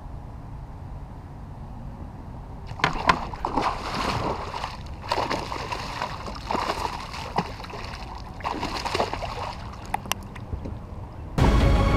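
Bass striking a topwater lure with a sudden splash about three seconds in, then repeated splashing and thrashing at the surface as the hooked fish is fought toward the kayak. Music begins just before the end.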